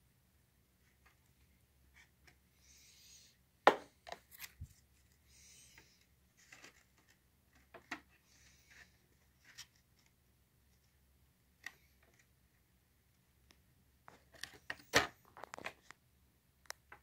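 Faint handling noises of a small model building as a glued trim piece is pressed into place: scattered sharp clicks and taps with a few short soft rustles, and a cluster of louder taps near the end.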